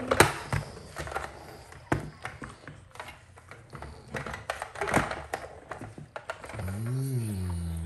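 Scattered clicks and knocks of a plastic toy car being handled on a wooden table, with louder knocks just after the start, about two seconds in and about five seconds in. Near the end comes a short, low voice sound that rises and falls.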